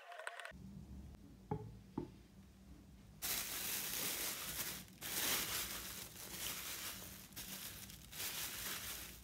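Thin plastic bag crinkling and rustling as it is pulled over and smoothed around a clay form, starting about three seconds in. Two short knocks come before it.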